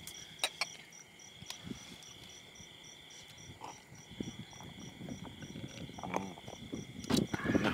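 Crickets and other night insects chirping: a steady high trill with a faster pulsing chirp above it. A few sharp clicks come through it, the loudest cluster near the end.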